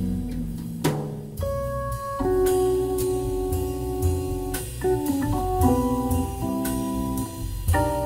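Live jazz on Hammond organ and drum kit: held organ chords that change every second or so over a low bass line, with drum strokes and cymbal hits.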